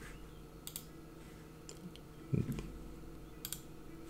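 Computer mouse clicks: two crisp press-and-release clicks, about three seconds apart, with a few fainter ticks between them as chart menus are operated. A short low sound comes about halfway through.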